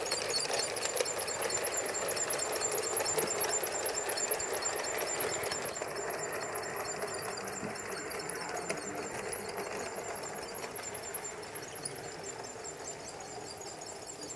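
LGB G-scale model train running on garden-railway track: the locomotive's electric motor and gears whirring, with the wheels running on the rails. It slowly fades as the train moves away.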